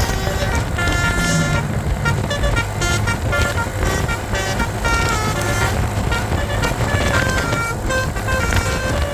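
Basuri telolet bus horn playing a tune: several trumpet tones sound together and step from note to note, over the bus engine's low running.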